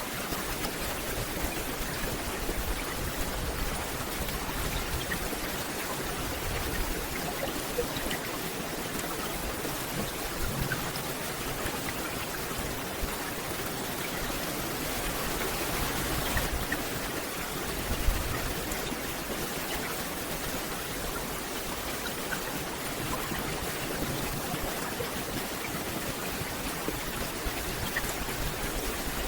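Steady rain falling on forest foliage: an even hiss of water flecked with individual drops, with one louder thump a little past the middle.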